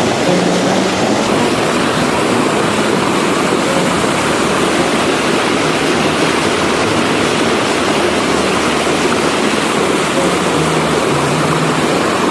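Steady, loud rushing of wind and water from a sailing yacht under way.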